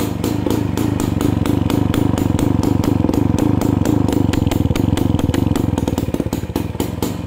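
Motorcycle engine idling just after a cold start after more than two weeks standing, kick-started because the battery is flat, with an even, rapid exhaust pulse from the silencer.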